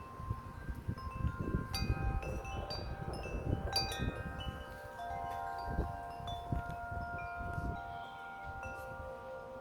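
Several Encore tuned metal wind chimes ringing in strong wind, their tubes struck again and again so that many pitched tones overlap and ring on. Wind buffets the microphone with a low rumble that eases near the end.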